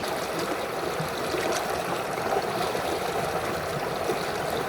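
Shallow creek water running steadily over rocks, an even rushing with small splashes and trickles.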